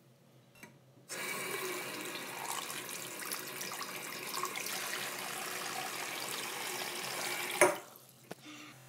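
Bathroom sink tap turned on about a second in, water running steadily and splashing over a hand into the basin, then stopping near the end with a sharp knock.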